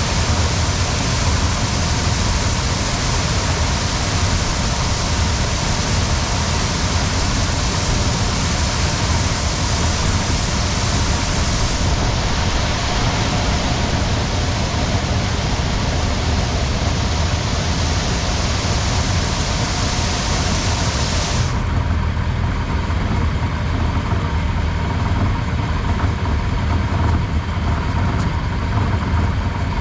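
John Deere 3300 combine running steadily while harvesting corn: a dense mechanical noise over a low, even engine hum. The higher hiss drops away abruptly twice.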